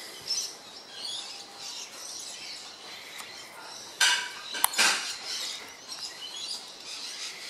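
Small birds chirping in the background, with camera-handling noise and two sharp plastic clicks about four seconds in, as the Panasonic Lumix GH3 body and its battery door are worked in the hands.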